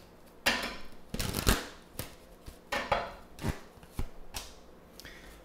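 Oracle cards being handled: drawn off the deck and set down on the table in an irregular series of short snaps and slides, about ten in all.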